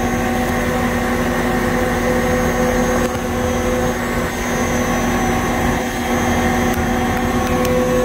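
Refrigerant recovery machine running with a steady hum, pulling refrigerant out of the chiller. Its higher held tone fades out about four seconds in and comes back near the end.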